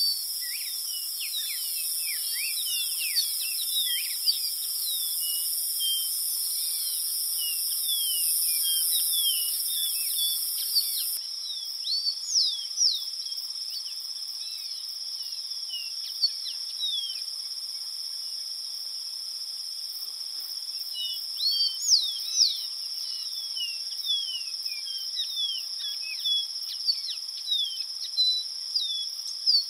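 Dark-throated seedeater singing: runs of quick, thin whistled notes sliding up and down. Under the song runs a steady, high insect drone, and a higher hiss cuts off about eleven seconds in.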